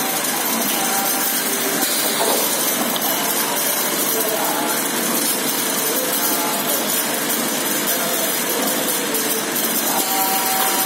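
Automatic multi-head bottle filling machine running: a steady, dense mechanical noise with no pauses or breaks.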